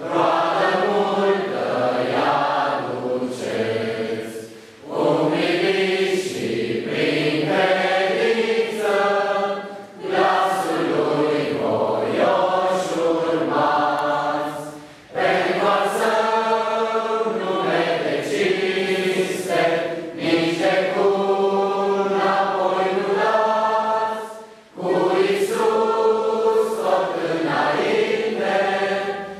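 Congregation singing a hymn together, many voices in long sustained phrases with short pauses for breath between them.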